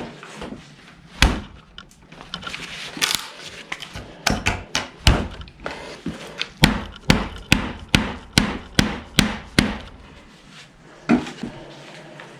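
Hard knocks struck repeatedly: a few scattered blows, then a steady run of about a dozen at two to three a second, and one more near the end. This is a Victorinox Hunter XS pocketknife being pounded in a destruction test.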